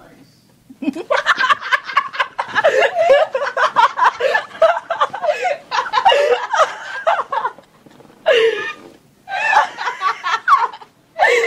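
Two young women laughing hard: a long fit of giggling and snickering from about a second in, then a few shorter bursts of laughter near the end.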